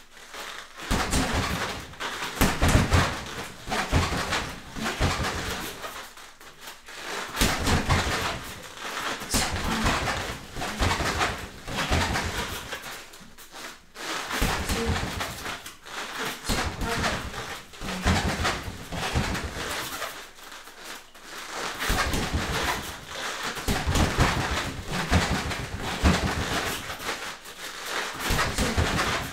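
Bare feet hopping in and out and stepping on foam floor mats during a shadowboxing combination of punches and knee strikes, in bursts of quick thumps and scuffs that repeat about every seven seconds with a short pause between.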